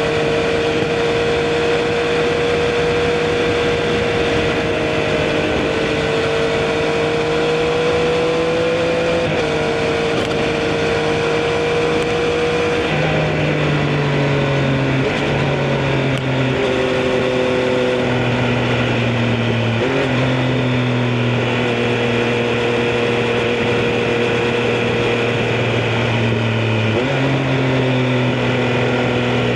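Triumph Street Triple RS inline-three engine running under way at fairly steady revs. About halfway through its pitch starts stepping between levels, dropping and rising again several times, as gears and road speed change.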